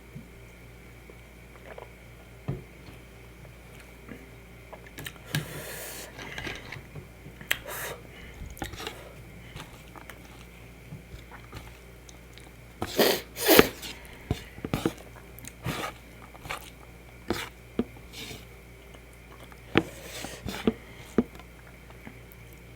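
Close-miked chewing and wet mouth sounds of someone eating rice with fish gravy and chicken kebab: scattered smacks, clicks and squelches, the loudest a pair of bursts about thirteen seconds in, over a faint steady hum.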